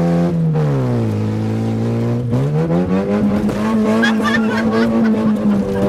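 Yugo car's engine under load off-road. The revs drop about half a second in, run low, then climb again about two seconds in and hold high.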